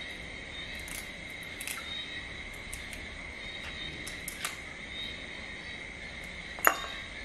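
Crab shell being picked apart by hand, with small clicks and cracks here and there and one sharp, louder click near the end. A steady high-pitched insect trill underneath.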